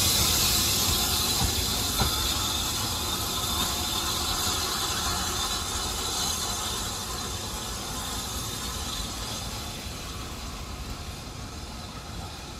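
BR Standard Class 5 steam locomotive No. 73082 moving away on the adjacent track, its steam hiss loud at first and fading steadily as it recedes, with a single sharp knock about two seconds in.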